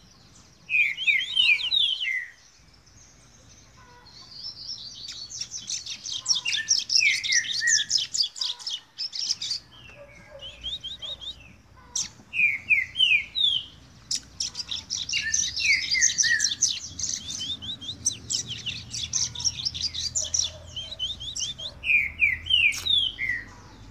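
Double-collared seedeater (coleiro) singing in repeated bouts of fast high trills mixed with short falling whistled notes, with brief pauses between bouts. It is a young bird whose song is still being polished and is not yet fully clean.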